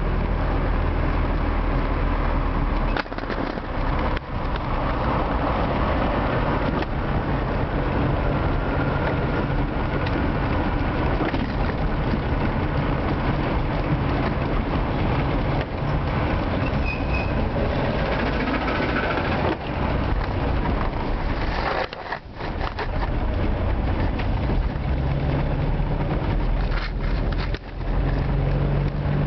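Old Moskvich car's engine and road noise heard from inside the cabin while driving in city traffic. The sound dips briefly a few times.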